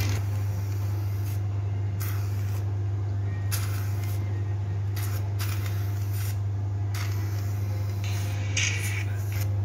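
Hydrafacial machine running with a steady low-pitched hum. Short, irregular hisses of suction or spray come from the handpiece as it works over the skin.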